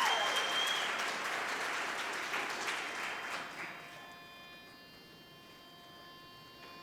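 Audience applause, with a high whoop sliding down in pitch right at the start; the clapping fades away about four seconds in, leaving a faint steady hum.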